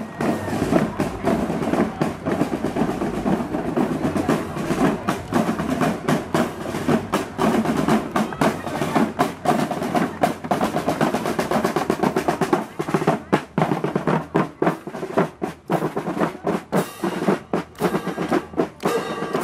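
Marching drum corps playing a cadence, led by snare drums with rapid strokes and rolls.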